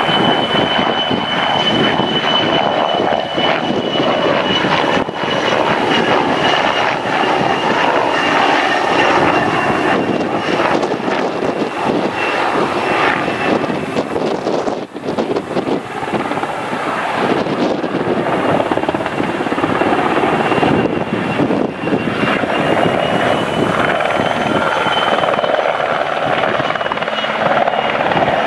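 PZL W-3A Sokol helicopter in flight, its main rotor noise running steadily under the high whine of its twin turboshaft engines.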